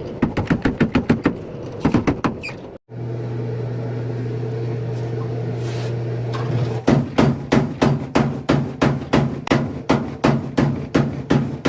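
Power hammer forging a hot Damascus steel billet: fast, evenly spaced blows, about four a second, over the steady hum of the hammer's motor. The blows stop for a few seconds while the motor keeps running, then start again near the middle.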